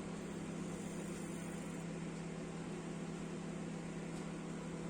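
Rosenlew RMM2030W microwave oven running with a steady hum while heating water, working normally on its replacement magnetron.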